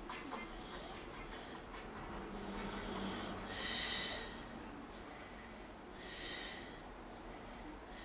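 A man snoring deeply in his sleep: a low snore a few seconds in, followed by two loud, airy breaths, the first about three and a half seconds in and the second about six seconds in.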